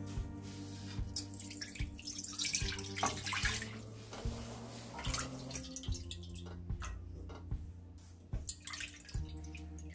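Water poured into an empty nonstick wok, splashing and running, loudest about two to four seconds in, then a cup of liquid poured in near the end.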